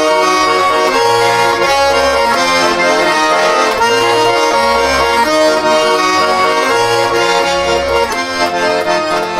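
An accordion plays an instrumental waltz passage: sustained chords over a bass line that changes about once a second.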